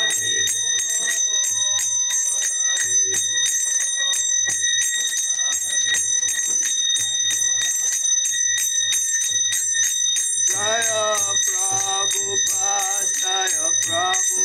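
Small brass hand cymbals (kartals) struck in a steady rhythm, their ringing sustained throughout, over a low beat. A man's voice sings a devotional chant, growing louder about ten seconds in.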